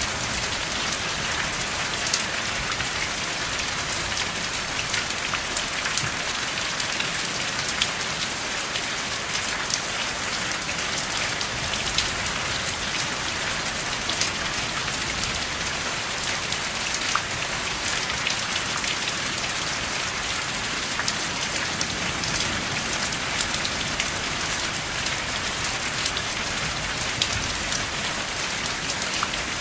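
Steady rain falling, an even hiss with many sharp individual drop ticks scattered through it; no thunder.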